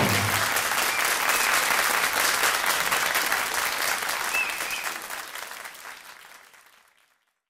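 Audience applauding at the end of a song, the clapping fading out and ending about seven seconds in.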